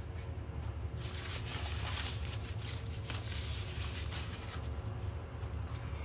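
Steady low hum with rustling and scraping handling noises starting about a second in.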